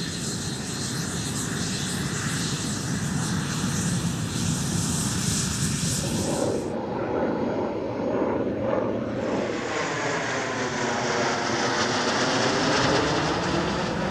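BAE Hawk jets' turbofan engines: a steady jet rush as a Hawk rolls for takeoff, changing after about six and a half seconds to jets flying past, their rumble sweeping up and down in pitch as they pass.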